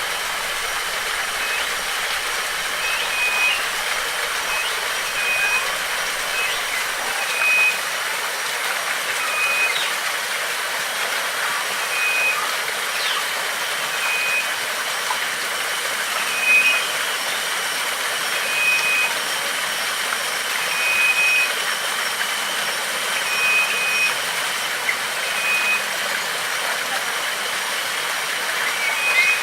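Steady rush of flowing water, likely a waterfall, with a bird repeating one short high note every second or two and a few faint chirps.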